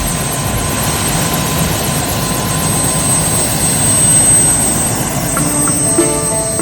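Helicopter running steadily, its rotor and turbine noise with a thin high whine; music notes come in near the end.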